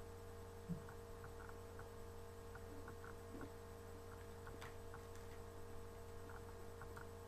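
Faint, irregular crunching clicks of chewing a Take 5 candy bar with pretzel and peanuts, over a steady low electrical hum.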